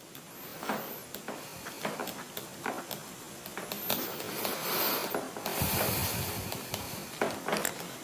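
Handwriting: a pen scratching and tapping in many short strokes, with a few faint high squeaks.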